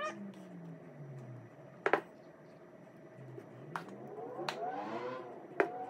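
A plastic measuring cup knocks and scrapes against a stainless steel bowl as waffle batter is scooped and poured: a few sharp taps, the loudest about two seconds in. Between the taps are faint tones that slide down in pitch and later back up.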